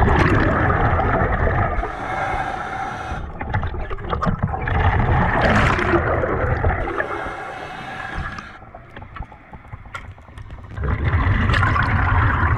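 Muffled underwater rushing and gurgling of water and bubbles, heard through an underwater camera housing, in surges with a quieter stretch about two-thirds of the way through.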